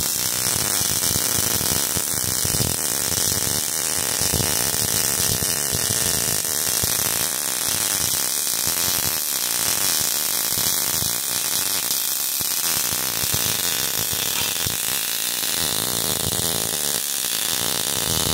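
Steady electronic whirring hum with a hiss over it, an added sound effect for an animated outro screen; it holds at an even level throughout, with no speech or tune.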